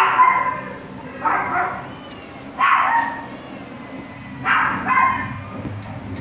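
Border Collie puppies whining and yipping: four short, high-pitched cries about a second or two apart, over a low steady hum.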